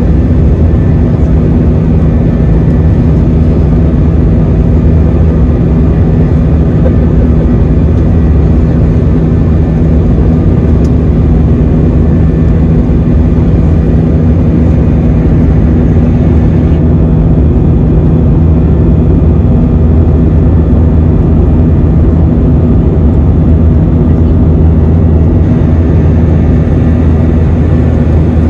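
Steady, loud jet engine drone heard inside the cabin of a Jetstar Airbus A320-family airliner, an unbroken low hum with a rushing noise over it.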